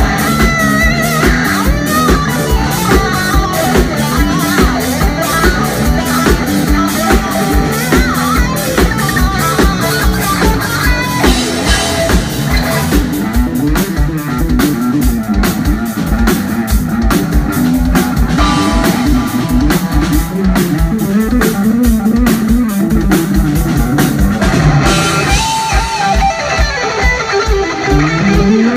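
Live instrumental rock from a guitar, bass and drums trio: driving drum-kit beats under a moving electric bass line, with electric guitar lines on top. The guitar thins out through the middle, leaving bass and drums to the fore, and comes back strongly near the end.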